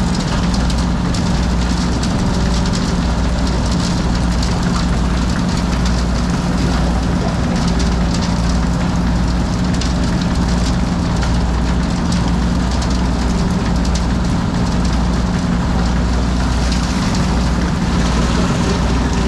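A drill running steadily: a constant low hum with an uneven throb beneath it and a hiss over the top.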